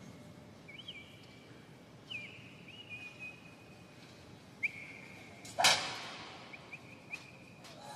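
Thin high whistling tones that swoop up and then hold, several times over, and one loud sharp crack about five and a half seconds in that rings on briefly.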